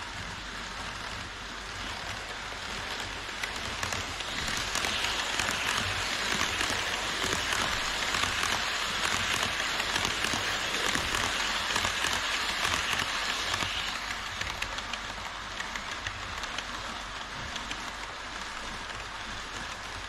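HO scale model trains running on a plastic-track viaduct, making a dense, rain-like hiss of wheels and motors. It grows louder for about ten seconds as an E5 series Shinkansen model passes close by, then falls back to a softer running noise.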